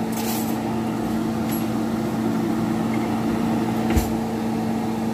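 Kitchen fan running with a steady hum, and one short click about four seconds in.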